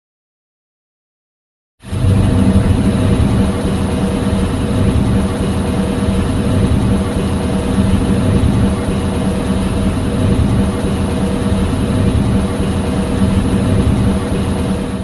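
Film sound effect: a steady, loud mechanical rumble with a faint constant hum in it, like an engine running. It starts suddenly about two seconds in, after silence, and holds unchanged.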